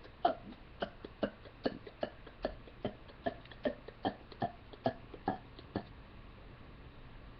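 A rapid run of short, clipped hiccup-like burps from a person, about two and a half a second, evenly spaced; they stop about six seconds in.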